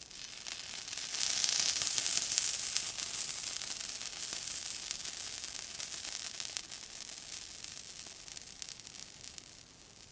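Water sizzling: a high hiss with fine crackles that swells over the first two seconds, then slowly dies away.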